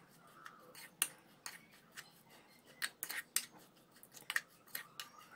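Small plastic spoon stirring a dry flour-and-breadcrumb coating mix in a plastic bowl: quick, irregular scrapes and clicks of the spoon against the bowl.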